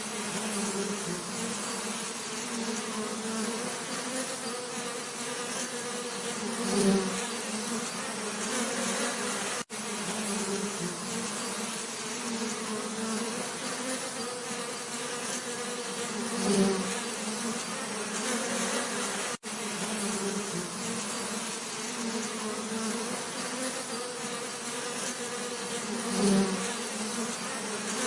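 Bees buzzing in a steady, many-voiced drone. Three times, about ten seconds apart, a single bee buzzes close and briefly grows louder.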